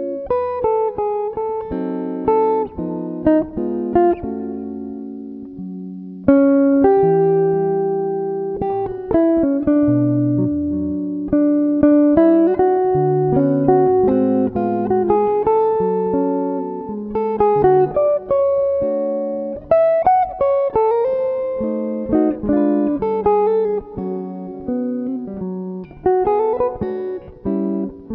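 Solo clean-toned electric guitar playing a slow jazz tune, plucked chords left to ring and fade under a melody line.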